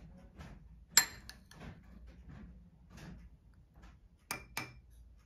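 Metal spoon clinking on glassware as almond gum is spooned onto a glass of falooda: one sharp ringing clink about a second in, then two lighter taps near the end, with soft scraping between.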